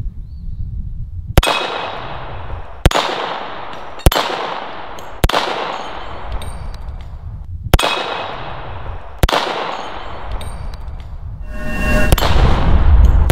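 Six single shots from a VZ-61 Scorpion in .380 ACP, spaced one to two and a half seconds apart. Each is followed by the ringing clang of a small steel target being hit. Near the end a louder low rumble rises.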